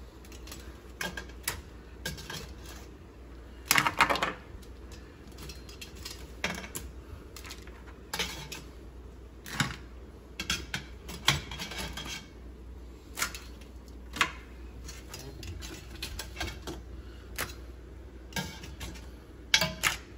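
Metal tongs clicking and scraping against a stainless steel stockpot as steamed blue crabs are lifted out, with the hard shells clattering as they are piled up. The clinks come irregularly, every second or so, loudest about four seconds in.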